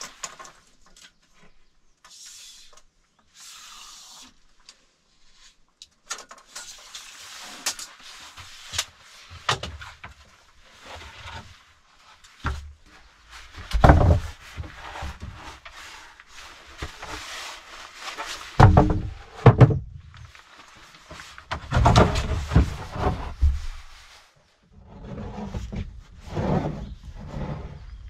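Wooden planks being handled and moved on a plank floor: irregular knocks and clicks with rustling of a nylon rain jacket, broken by several heavy wooden thumps, the loudest about halfway through and again in the last third.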